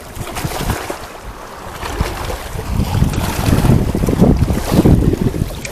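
Wind buffeting the microphone over water and boat noise, the rumble growing stronger from about two seconds in.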